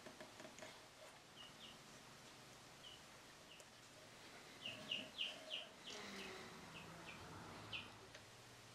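Faint, short high chirps of a small bird, about a dozen scattered notes that come thickest around the middle, over an otherwise near-silent room.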